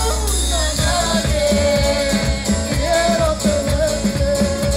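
Live band music played over a PA: held sung lines over acoustic guitar and a steady drum beat.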